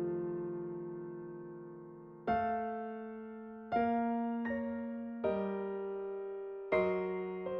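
Background music: slow, soft electric piano chords, each struck and left to fade before the next, about every second and a half.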